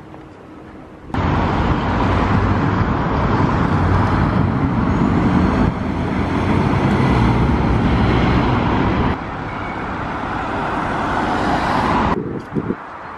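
Road traffic on a city street: a double-decker coach and cars driving past, a steady mix of engine noise and tyre hiss. It starts suddenly about a second in and changes level abruptly a few times.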